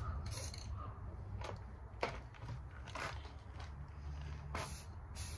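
Aerosol spray can of primer sprayed in short, quick bursts: six brief hisses spaced roughly a second apart, each lasting a fraction of a second.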